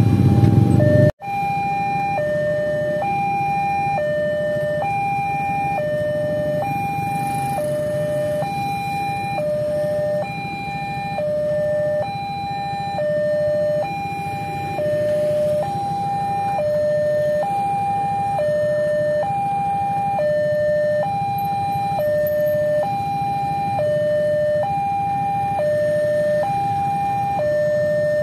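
Railway level-crossing warning alarm sounding, a two-tone electronic signal alternating high and low about once a second, warning that a train is approaching while the barrier is down. For about the first second a loud low rumble of a passing train lies under it, cut off abruptly.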